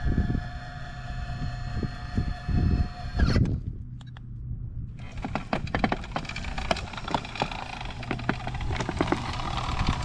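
Electric drive motors of a homemade remote-control tracked wheelbarrow running with a steady whine, which cuts off suddenly about three seconds in. From about halfway through, rapid clicks and knocks come in over a low hum, with the rubber tracks clattering as it moves.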